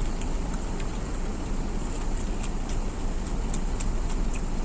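Steady rumbling background noise with faint, scattered soft clicks of someone chewing food.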